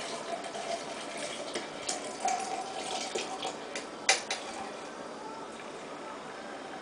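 Cold water poured from a plastic pitcher into a French press over coffee grounds, a steady splashing trickle as the press fills for cold-brew coffee. A few sharp clicks cut through it, the loudest about four seconds in.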